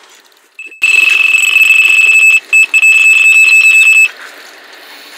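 Electronic carp bite alarm sounding a loud, steady high-pitched tone for about three seconds, with a short break and quick pulsing near the end before it cuts off suddenly: the signal of a run, a carp taking the bait and pulling line.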